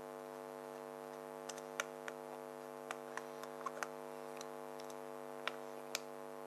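Scattered light clicks and ticks of a flat-blade screwdriver working against a small brass main jet in a carburettor body as the jet is screwed back in, over a steady background hum.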